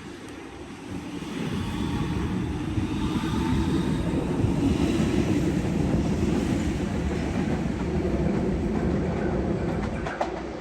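Sydney suburban electric train running through the station, its wheel and motor rumble building about a second in and then holding steady and loud.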